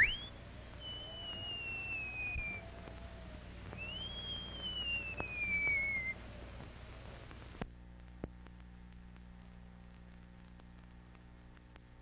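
A quick upward whistle, then two long high, thin whistled calls, each sliding down in pitch over about two seconds, like a hawk's scream. After them, a faint hum with a few clicks from an old film sound track.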